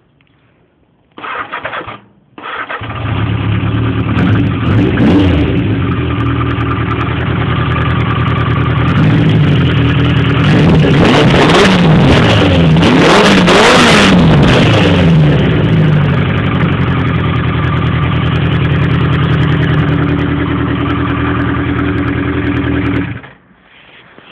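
Yamaha XJ650 inline-four motorcycle engine being started: a short first crank, then it catches a couple of seconds in. It runs and is revved up and down repeatedly, hardest in the middle, and then is switched off suddenly near the end.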